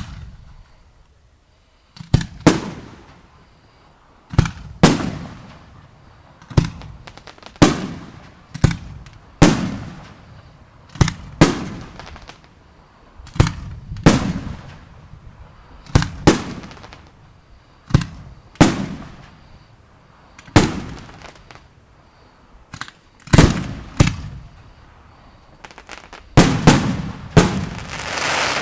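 Fireworks display: aerial shells bursting one after another, roughly one bang a second and often in close pairs, each bang trailing off in an echoing tail. A quicker run of bursts comes near the end.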